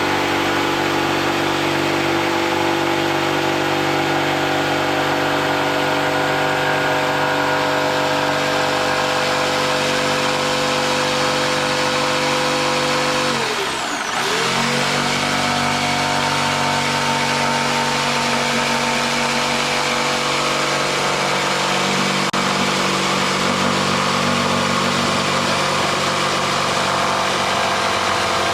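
A motor running steadily with an even hum. About halfway through its pitch dives almost to a stop and quickly climbs back to the same speed.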